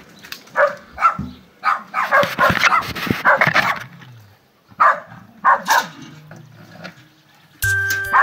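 A dog barking repeatedly in quick runs of short barks, falling silent about six seconds in. Music starts near the end.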